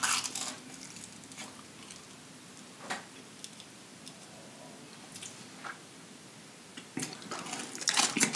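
Close-miked crunchy bites and chewing of breaded, deep-fried king crab legs and shrimp: single crisp crunches at the start and about three seconds in, and a quick run of crunches near the end.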